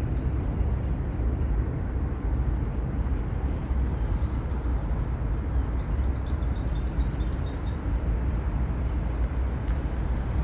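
Steady low outdoor rumble of a riverside park walk, with a few faint high chirps about four and six seconds in.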